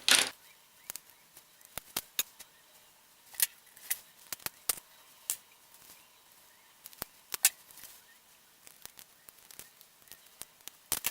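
Plastic parts of an LG Rumor keyboard phone clicking and tapping as they are handled and pried apart: a louder scrape at the very start, then scattered light clicks at irregular intervals.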